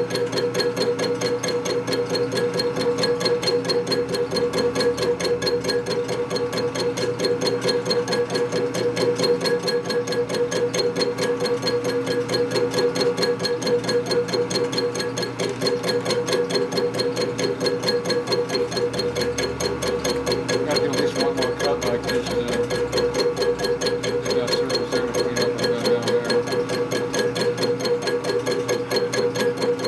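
Milling machine cutting an aluminum brake caliper bracket: a rapid, even pulsing of the cutter over a steady hum, with a brief dip about halfway through.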